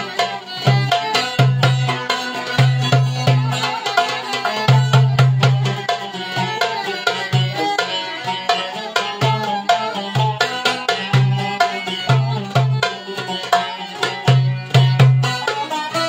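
Instrumental Turkish folk dance music. A darbuka (goblet drum) plays a fast rhythm of deep low strokes and sharp high clicks, under a violin melody.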